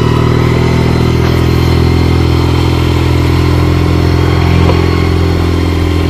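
Engine of a Kubota 4x4 side-by-side utility vehicle running steadily at low speed as it crosses a wooden plank bridge.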